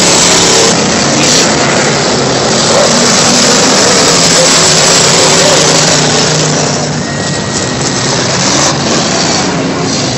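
Dirt-track race car engines running and revving as a loud, rushing roar with shifting engine tones, easing a little about seven seconds in.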